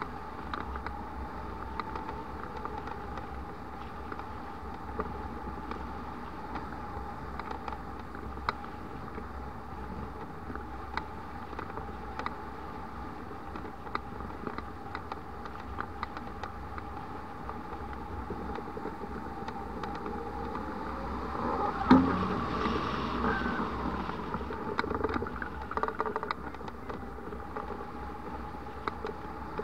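Airflow over a hang glider in flight: steady wind rush with scattered ticks and rattles from the airframe, and a louder thump about twenty-two seconds in.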